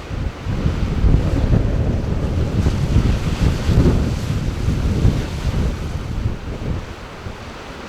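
Wind buffeting the microphone over the wash of ocean waves, a gusty low rumble that eases off near the end.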